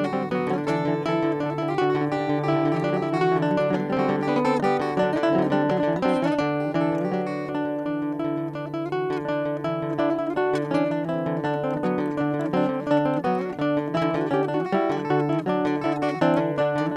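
Background music: an acoustic guitar playing a tune in plucked notes.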